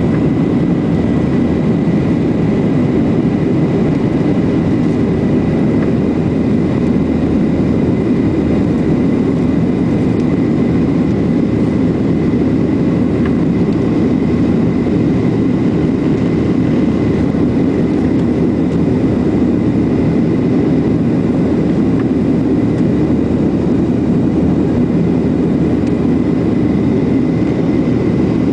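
Boeing 737-800's CFM56 jet engines and airflow heard inside the passenger cabin during the climb after takeoff: a steady deep rushing drone with a faint, thin high tone running above it.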